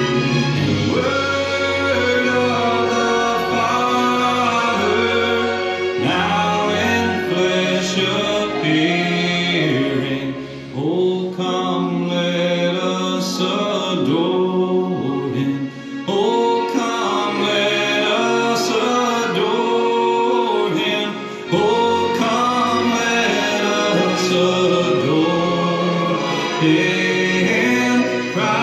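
A Christian song: singing with choir-like voices over instrumental accompaniment, with short pauses between phrases.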